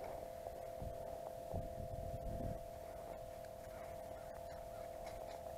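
Steady electronic hum from an ice-fishing flasher sonar unit running on the ice, with a few low rumbles of wind on the microphone in the first half.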